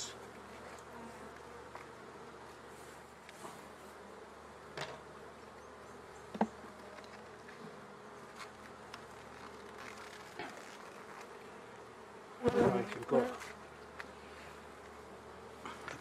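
Honeybees buzzing steadily in an open beehive, with a few light knocks as the wooden frames are handled. About twelve and a half seconds in there is a louder, short burst of sound.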